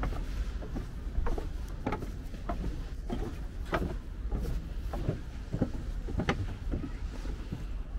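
Footsteps on a paved path: irregular short clicks and knocks, about one or two a second, over a steady low rumble.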